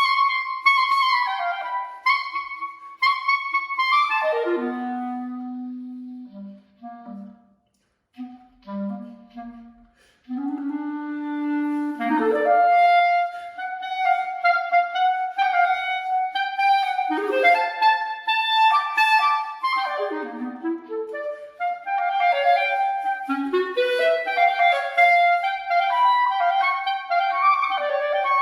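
Solo unaccompanied clarinet playing a rhythmic dance piece: quick high phrases, a run down into the low register about four seconds in, soft low notes broken by short pauses, then lively, fast high-register passages from about twelve seconds on.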